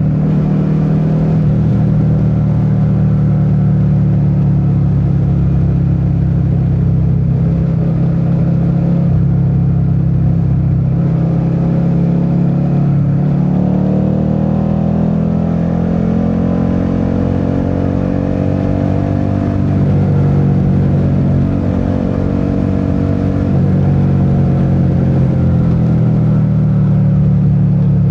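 Suzuki SV650's 645 cc 90-degree V-twin engine running under way, a steady drone whose pitch climbs as the bike accelerates about halfway through, eases back, and rises again near the end.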